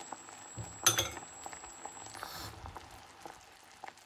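Thick tamarind and dried-plum chutney bubbling in a saucepan, a crackle of small popping bubbles that slowly dies down with the stove flame just turned off. A single sharp clink about a second in.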